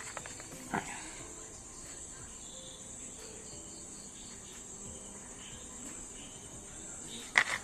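Crickets chirping in a steady, high-pitched trill, with a short soft knock or rustle about a second in.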